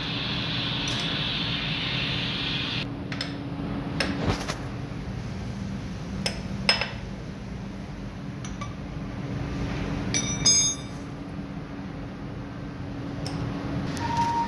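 Steel hand tools clinking against the casing of a Mercedes-Benz Actros truck gearbox as its bolts are undone with a T-handle wrench and spanner: a few sharp clinks, and one ringing clank about ten seconds in. A steady low hum runs underneath, with a hiss in the first few seconds.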